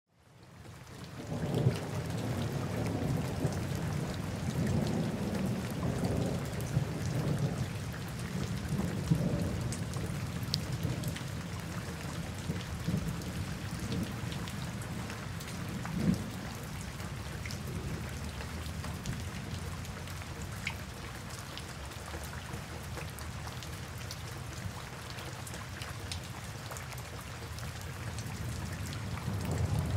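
Heavy rainforest rain pattering steadily, with thunder rumbling low underneath. It fades in over the first second or two, the rumble is strongest in the first half and eases later, and there is a louder crack about halfway through.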